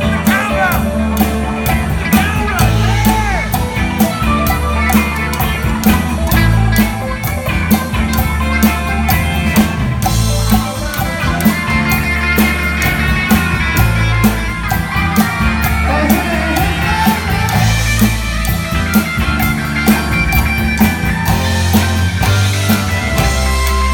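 Rock song with singing, guitar and drums, driven by a steady sharp percussive beat.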